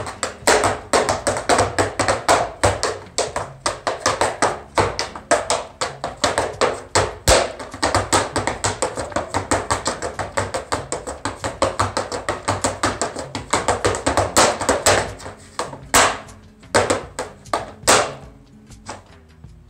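Malambo footwork (zapateo): fast, rhythmic strikes of shoes on a dance mat, several a second, ending in a few separate stamps near the end.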